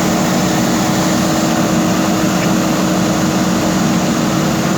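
JCB backhoe loader's diesel engine running steadily under work, with a constant droning tone.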